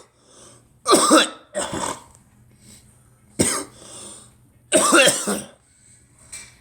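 A person coughing: two coughs close together about a second in, a short one about halfway through, and a longer, harsher one near the end.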